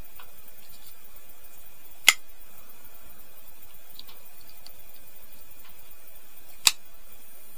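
Ontario RAT-1 folding knife being worked by hand, with two sharp clicks of the blade and its liner lock, about two seconds in and again near the end. The lock is catching and holding the blade open, now that the knife's loose lock has been repaired.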